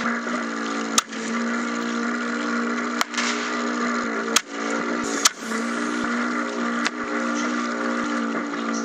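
Drive motor of a radio-controlled model landing craft running with a steady hum, heard from on board. It is broken by about five sharp, short bangs or knocks, the loudest about a second in and again just past five seconds.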